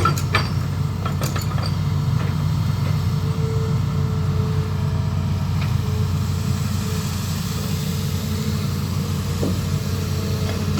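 Diesel engine of an amphibious excavator running steadily, a low even drone, with a few light clicks in the first second or so.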